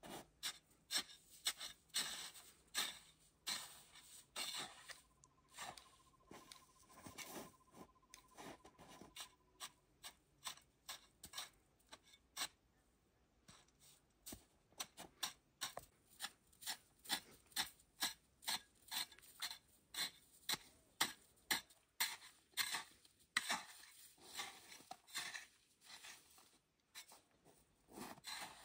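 Shovel blade scraping and chopping into packed snow, in a long run of short strokes about two a second, with a short pause about halfway through.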